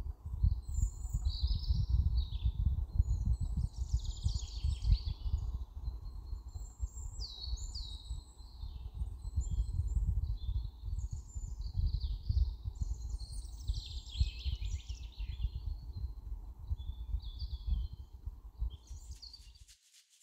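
Small birds chirping and singing in many short calls over a low, uneven rumble; both cut off suddenly just before the end.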